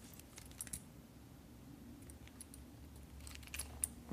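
Quiet, with a few faint light clicks and rubs from two smartwatches and their straps being turned over in the hands, a little after the start and again about three seconds in.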